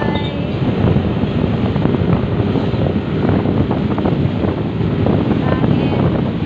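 Steady wind rushing over the microphone on a moving motorcycle, with a low rumble of the ride beneath it.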